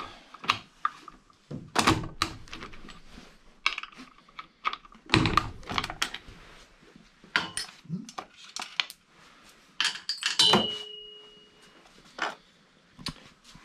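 Metal clicks, clanks and knocks of a Stihl chainsaw's sprocket cover being undone and lifted off by hand, with a short metallic ring about three quarters of the way through.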